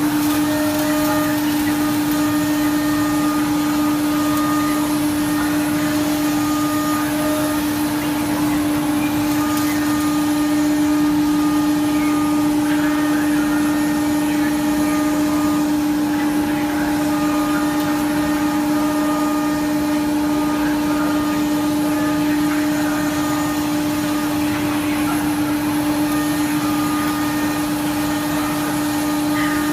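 CNC router spindle running steadily while cutting grooves into a wood panel, a constant whine over the rushing noise of the dust extraction.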